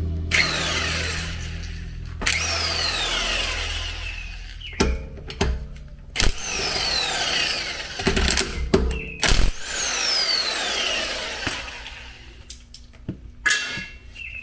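Power impact wrench spinning lug nuts off a car wheel: four bursts of a couple of seconds each, the motor's whine falling in pitch during each, with short metallic knocks between them.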